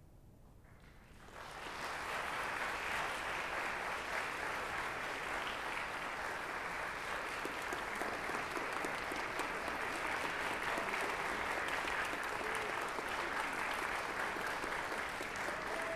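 Audience applause rises about a second in, after a brief hush at the end of the music, and continues steadily.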